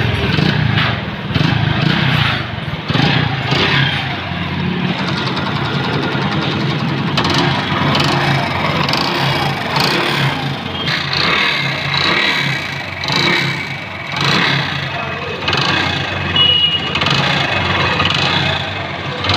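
Honda Pridor motorcycle's single-cylinder four-stroke engine running with a noisy, knocking mechanical sound. The mechanic puts the noise down to a worn top end (a loose piston in the cylinder), which can sound like a connecting-rod knock.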